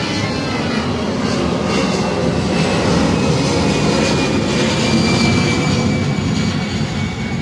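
Jet engines of an Airbus A320 airliner climbing out after takeoff, a loud steady rumble with a faint whine slowly falling in pitch.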